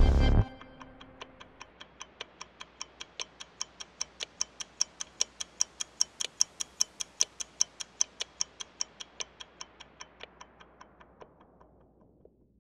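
Clock ticking, about two and a half ticks a second, swelling in and then fading out near the end. The background music cuts off about half a second in, just before the ticking starts.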